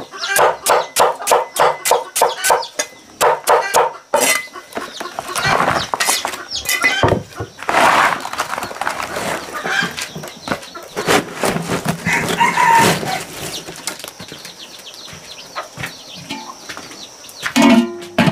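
A knife chopping yam tubers on a wooden block, steady chops about four a second, stopping after about three and a half seconds. Chickens then cluck and scratch amid shuffling and scraping, and near the end a metal pot lid clanks once with a short ring.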